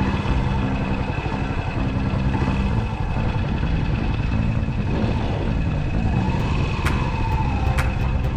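Yamaha SR single-cylinder motorcycle engine running at a steady pace, with a few sharp clicks near the end.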